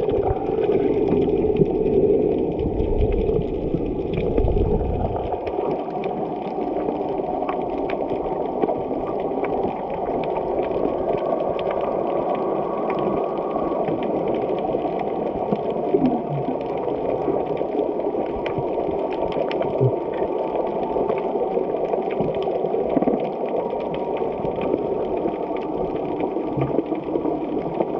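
Muffled underwater ambience while snorkeling: a steady wash of moving water with scattered faint clicks, and a low rumble during the first few seconds.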